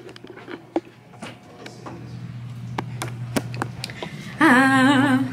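Scattered clicks and knocks of a hand-held camera being carried, over a low steady hum; about four seconds in, a person's voice holds one loud, wavering note for under a second.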